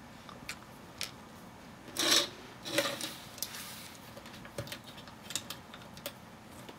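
LEGO plastic pieces being handled and pressed together by hand: scattered light clicks and taps, with a couple of louder rustles about two and three seconds in.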